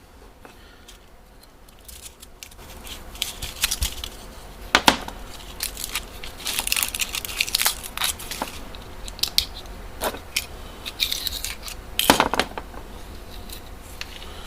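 Old adhesive tape being peeled and torn off a pocket knife's handle, crinkling and tearing in uneven stretches, with a few sharp clicks, the loudest about five, ten and twelve seconds in.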